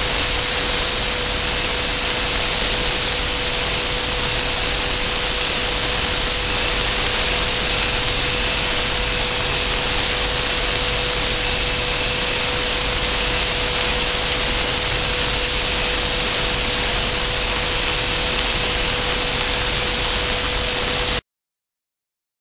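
Machinery running with a steady high-pitched whine over a steady lower hum and a hiss. It cuts off suddenly about 21 seconds in.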